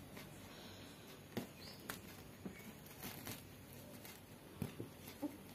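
Faint scattered clicks and soft rustles of fingers crushing a green chilli and lime into salt on a banana leaf.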